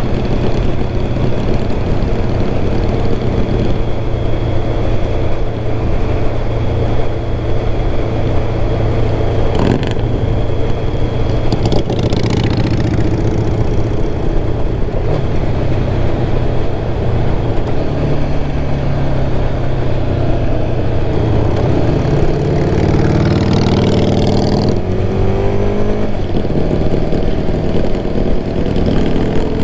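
1996 Kawasaki ZX-11's inline-four engine running under way. A little past twenty seconds in it revs up in rising pitch, drops abruptly at a gear change, and climbs again.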